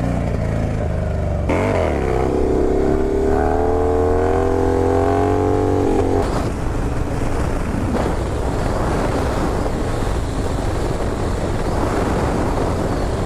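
Harley-Davidson Dyna Low Rider's V-twin engine pulling away, its pitch climbing for several seconds. After that, mostly steady wind rush over the helmet microphone at riding speed.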